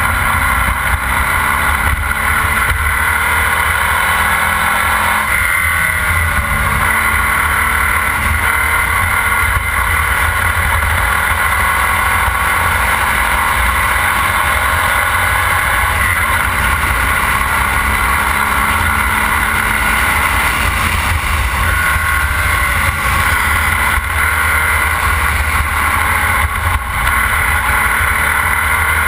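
Formula Vee race car's air-cooled VW flat-four engine running hard at racing speed, heard from on board, with small rises and falls in pitch through the corners.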